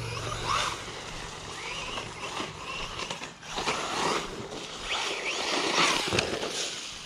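Bezgar HM124 brushless RC car driven in short bursts over dirt and gravel, its motor whine sliding up and down in pitch with each change of throttle.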